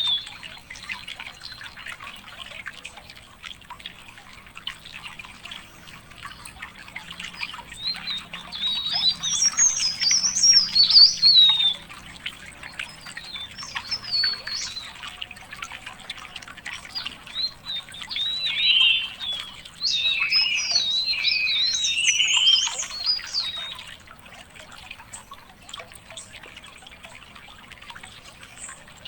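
Songbirds singing in bursts of rapid, twisting, high warbled phrases, loudest in two spells about a third and two thirds of the way through, over a faint, busy background of small chirps.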